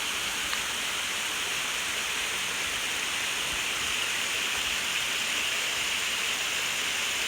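Running water rushing steadily, an even hiss with no distinct splashes or drops.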